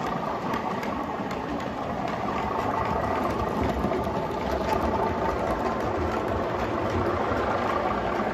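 O gauge model Class 37 diesel locomotive running past with a train of MGR hopper wagons: a steady engine-like running sound over the rumble of wheels on the track, a little louder midway as it comes closest.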